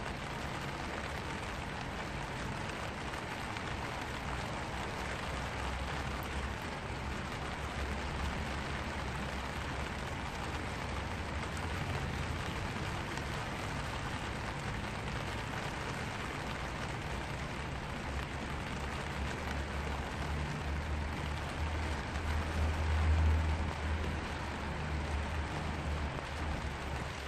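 Steady rain falling on a black vinyl umbrella canopy, heard from underneath it. A low rumble under the rain swells near the end.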